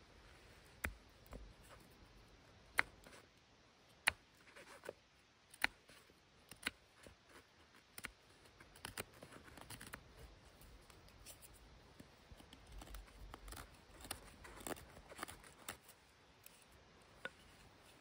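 Fixed-blade knife shaving a dry wooden stick: a series of short, sharp scraping cuts, single strokes about a second apart at first, then quicker, denser strokes around the middle.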